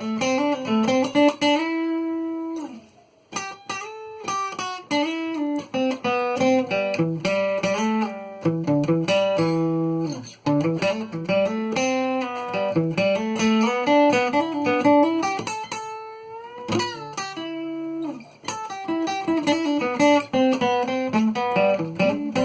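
Cort GA5F-MD acoustic guitar played unplugged: a picked melody of single notes mixed with chords, each note ringing on. There is a brief pause a few seconds in.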